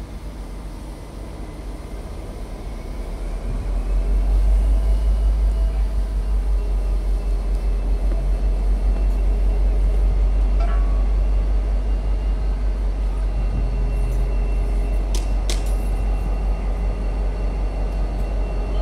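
Low, steady rumble of a heavy vehicle, swelling about four seconds in and then holding, with a few sharp clicks in the second half.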